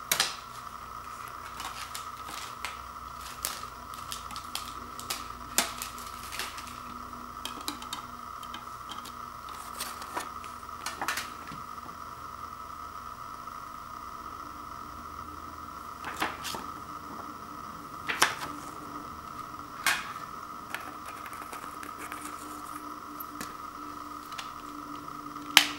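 Clicks and taps of a slim plastic CD jewel case and a CD-R being handled, with a few sharper clicks and one loud snap near the end as the case is closed. A steady hum runs underneath.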